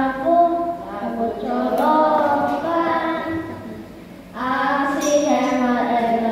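Children singing together into microphones, in long held and sliding notes, with a short break about four seconds in before the singing starts again.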